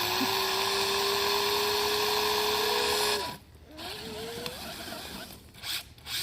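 Brushless electric motor of a 1/8-scale RC monster truck whining under throttle: the pitch climbs and holds steady for about three seconds, cuts off suddenly, then a shorter whine climbs again.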